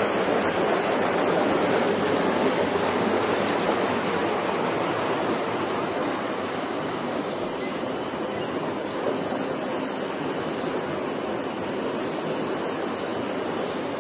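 Steady rush of running water, dropping slightly in level about six seconds in.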